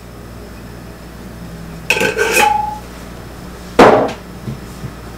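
A small glass of chili powder knocking against a stainless steel mixing bowl: a few ringing clinks about two seconds in, then one heavier knock about four seconds in.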